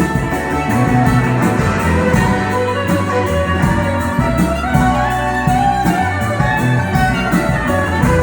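Instrumental music with a steady beat and bass line.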